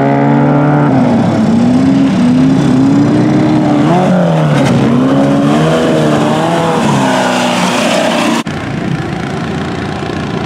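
Off-road buggy's engine revving up and down as it drives through mud, its pitch rising and falling over and over. Shortly after eight seconds the sound cuts to a steadier, slightly quieter engine noise.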